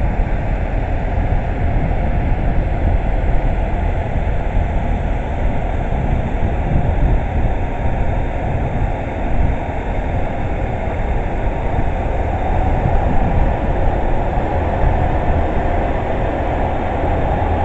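Steady low rumble of a JR West 287 series limited express electric train at a station platform.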